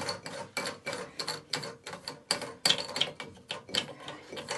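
Rapid, irregular clicking, about four to five clicks a second, as a toilet cistern's plastic fill valve is unscrewed by hand.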